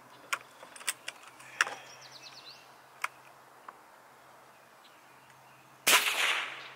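A .25 Hatsan BullBoss PCP air rifle fires a single shot about six seconds in, a sharp crack that trails off over most of a second. The pellet is a cleaning pellet, fired at close to 900 feet per second. A few faint light clicks come before it.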